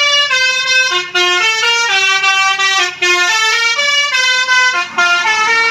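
Bus telolet horn of the Basuri type, a multi-trumpet air horn, playing a quick tune of distinct notes one after another, with two brief breaks.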